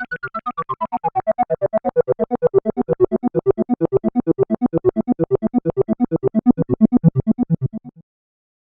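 Analog synthesizer (Korg MS-20 or Behringer K-2) playing a fast run of short repeated notes, about eight a second, with the filter sweeping down from bright to dark over the first couple of seconds. The notes stop abruptly near the end.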